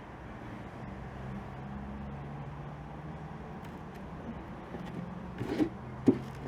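A steady low mechanical hum, with a few handling knocks and one sharp click near the end.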